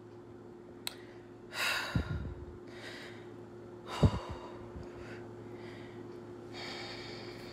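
A few breathy exhales and sighs with two soft thumps about two and four seconds in, over a steady low hum.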